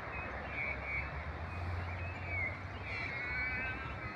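A flock of crows and magpies calling over one another from a distance: repeated short calls and a chattering run about three seconds in, over a steady low rumble.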